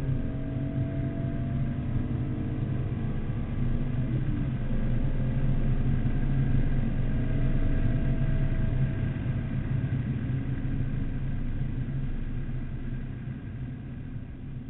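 BMW Z4 M Coupe's straight-six engine under hard acceleration, heard from inside the cabin with road and wind noise. Its pitch climbs steadily, with a gear change about four seconds in. The engine note eases off over the last few seconds.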